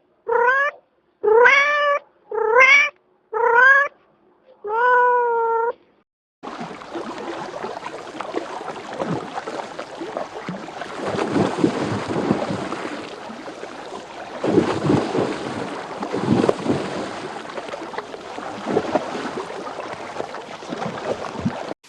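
A cat meowing six times in the first six seconds, each meow bending in pitch. After that, an uneven crackling noise with no clear source fills the rest.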